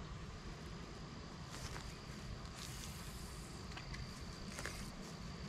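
Outdoor ambience: a steady high-pitched insect drone over a low rumbling haze, with a few faint clicks and a brief hiss about halfway through.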